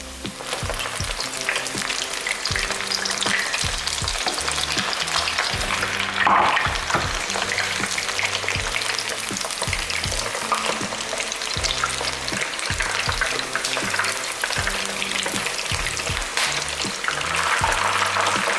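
Batter-coated chicken wings deep-frying in hot oil: a dense crackling sizzle that starts about half a second in, swelling briefly about six seconds in and again near the end.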